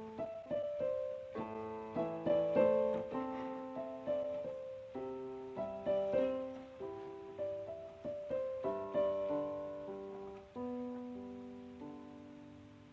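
Background piano music: a slow melody of single notes and chords, each note struck and then fading away.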